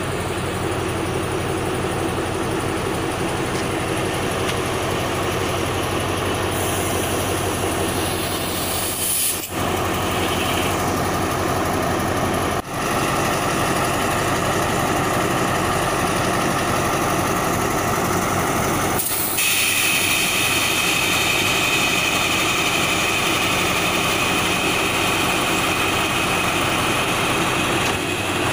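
Diesel locomotive engine running steadily close by as a passenger train pulls into the station and stops, with a higher hiss joining in about two-thirds of the way through.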